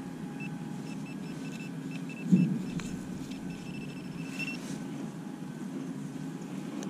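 Pro-Pointer pinpointer beeping in short, broken runs as it is probed through grass: its alarm for metal close to the tip. A single knock about two seconds in. A steady low rumble underneath.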